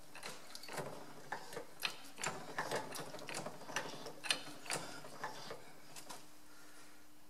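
Hydraulic shop press working to press a tractor rear axle out of its bearing housing: irregular sharp metallic clicks and ticks, roughly two a second, thinning out about six seconds in.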